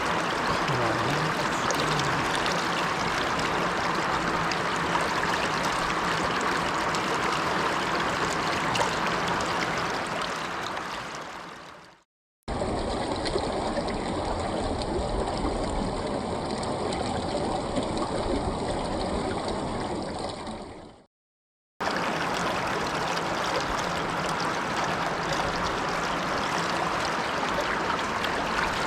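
Mountain stream water rushing steadily. It drops out twice in brief fades to silence, about 12 and 21 seconds in, and the middle stretch sounds duller in the top end.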